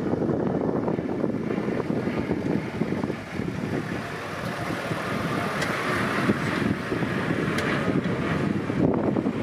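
Wind buffeting the camera microphone: a steady, irregular low rumble with a faint hiss.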